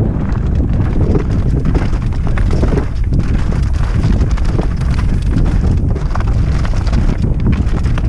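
Mountain bike descending rocky singletrack: tyres and frame rattling and knocking over stones in a constant clatter, with heavy wind buffeting on the microphone.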